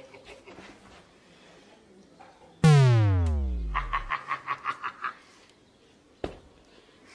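Cartoon-style comedy sound effect: a loud synthetic tone that starts suddenly and slides steadily down in pitch for about a second and a half. A rapid rattling chatter of about six pulses a second overlaps its end, and a single sharp click comes near the end.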